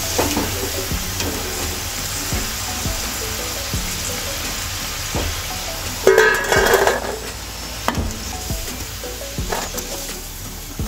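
Hot oil sizzling in a kadhai as deep-fried baby potatoes are scooped out with a wire skimmer, the skimmer clicking against the pan. About six seconds in, the potatoes are tipped onto a steel plate with a loud clatter and a short metallic ring.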